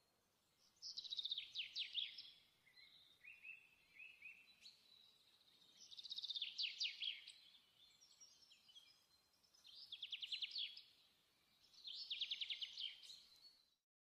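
A songbird singing in four trilled phrases, each a quick run of rapid descending notes, with softer chirps between them. The sound cuts off just before the end.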